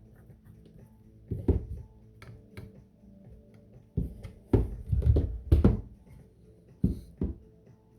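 Background music under a series of irregular sharp clicks and knocks, densest in a cluster around the middle, from parts of an airsoft gun being handled and fitted while a stock is installed.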